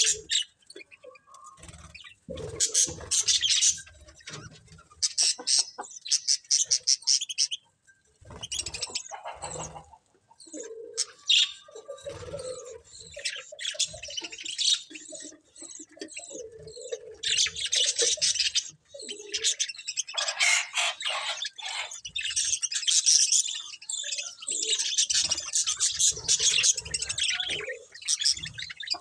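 Budgerigars chattering and chirping together in a busy, nearly continuous stream of rapid high twitters, with a few brief pauses.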